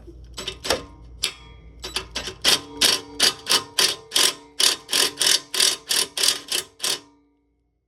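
Ratchet on a long socket extension clicking in a quick regular run, about three to four sharp metallic clicks a second with a faint ring from the extension, working a downpipe bolt under the car; the clicking stops a second before the end.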